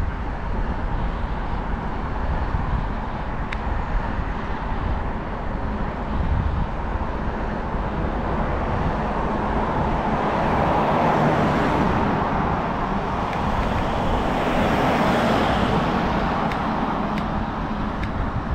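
Wind and road noise on the action-camera microphone of a moving road bike: a steady rushing with low buffeting rumble. Past the middle a brighter hiss swells and then fades over several seconds, and there are a few faint ticks.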